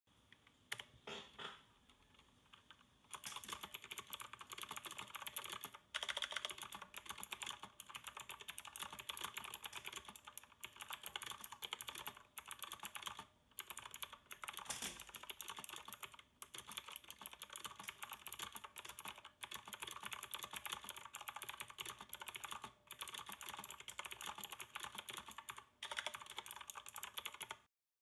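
Fast, continuous typing on a typewriter-style mechanical keyboard with clicky blue switches and round keycaps: a dense clatter of key clicks with brief pauses every few seconds. A few single key presses come first, steady typing starts about three seconds in, and it stops suddenly near the end.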